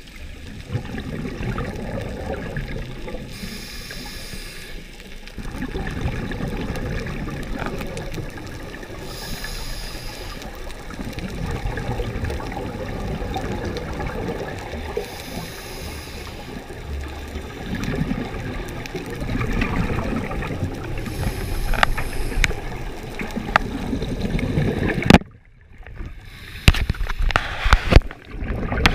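Scuba regulator bubbles heard underwater through a camera housing: gurgling, hissing bursts of exhaled air about every six seconds, over a low rumble of water. Sharp clicks and knocks come near the end.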